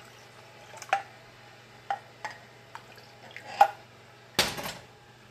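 Kitchen handling sounds of a small saucepan and a ceramic mug after pouring milk: several sharp light clinks, the loudest about three and a half seconds in, then a short scraping clatter as the pan is set down near the end.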